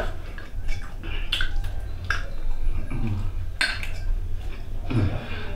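Scattered clinks and scrapes against a metal bowl as food is eaten from it, over a steady low hum.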